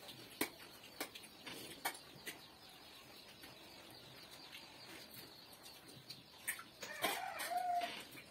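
A few light clinks of plates, spoons and dishes at a meal table, and near the end a hen's short clucking call.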